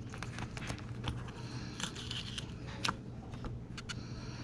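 Plastic blister pack and cardboard backing card of a set of Boyesen Power Reeds being handled, giving scattered crinkles and small clicks.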